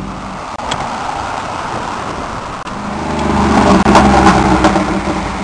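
A car engine comes up about three seconds in and is loudest around four seconds as the car accelerates, then settles back a little.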